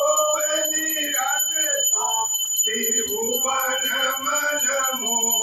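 Men singing a devotional aarti hymn together in long held phrases, with a steady high-pitched ringing tone behind them.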